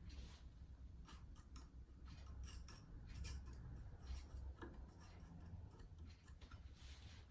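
Faint, scattered small clicks and light rubbing from hands at work on the pedal mount while grease is spread on it. A low, steady rumble lies underneath.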